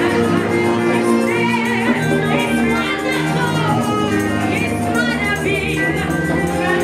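Live church worship band playing, with a woman singing lead into a handheld microphone over steady held bass and chords.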